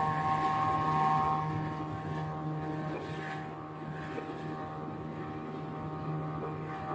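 Motorboat engine running steadily under way, a constant drone. A higher whine in it fades about a second and a half in, and the whole gets a little quieter soon after.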